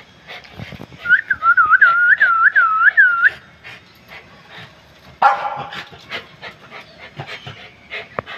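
A quick run of about eight clear whistled notes, each dipping and then rising in pitch, followed about two seconds later by a sudden harsh cry; light clicks and taps throughout.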